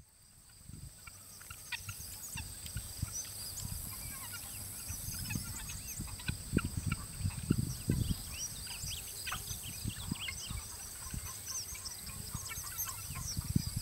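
A poultry flock calling: many short overlapping chirps and peeps, with irregular low thumps on the microphone. The sound fades in over the first couple of seconds.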